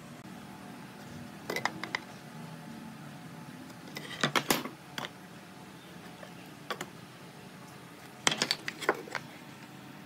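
Pine boards and a metal speed square being handled on a wooden workbench: four short clusters of light clacks and knocks as boards are set on edge and the square is laid against them, over a faint steady hum.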